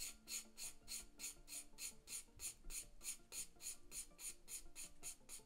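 Drawing pencil scratching across printer paper in quick, even shading strokes, about four a second, as a dark area is filled in with tone.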